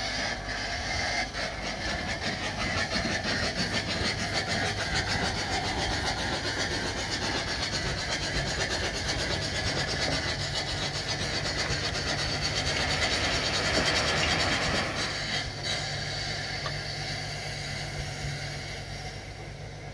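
Duplex steam pump of a Mann steam wagon working fast to drive the hydraulic tipper: a rapid, even clatter of strokes with loud hissing of exhaust steam, as the body tips and gravel slides off. The sound eases off about three quarters of the way through.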